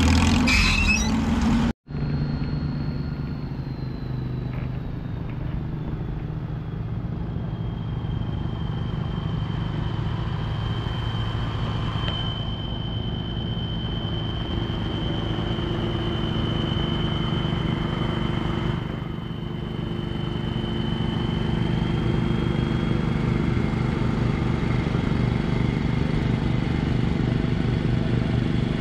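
Antique tractor engines running steadily as tractors drive by, with a thin high whine that slides a little lower in pitch early on and then holds steady for most of the time.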